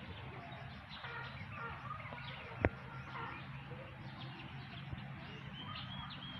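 Birds chirping with scattered short calls, and a short string of high peeps near the end. A single sharp click sounds about two and a half seconds in.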